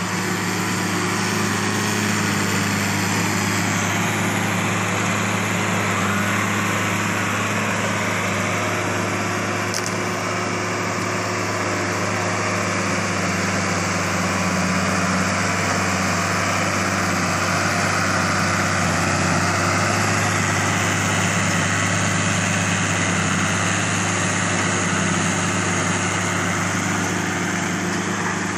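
New Holland M135 tractor's six-cylinder diesel engine running steadily under heavy load at about 1900 rpm, pulling a single-furrow plough 60–70 cm deep through the soil.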